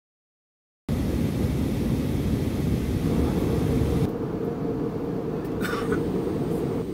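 Steady low rumble of an airliner cabin in flight: engine and airflow noise heard from inside the passenger cabin. It starts about a second in after a silent gap, then turns a little quieter and less hissy about four seconds in.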